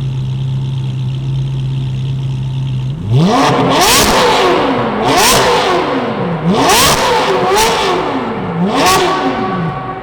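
A high-performance V8 car engine idling steadily, then revved hard about five times in quick succession about three seconds in, the pitch climbing sharply and dropping back each time, before settling to idle again near the end.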